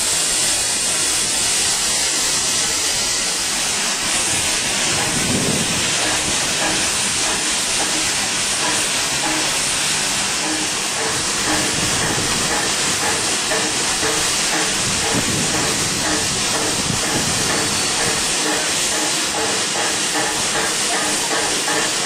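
Stationary steam locomotive hissing steadily with escaping steam.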